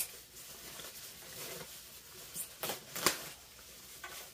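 Thin white packing wrap rustling and crinkling as it is handled and pulled off a guitar, with a couple of sharper crackles about three seconds in.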